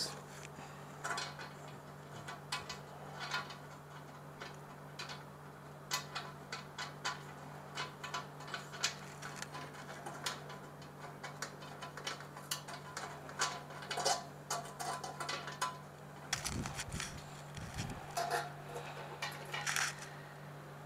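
Scattered, irregular small metal clicks and clinks as washers and nuts are fitted by hand onto the heating-element terminal bolts inside a steel sterilizer drum, over a steady low hum. A couple of dull bumps come late on as the drum is handled.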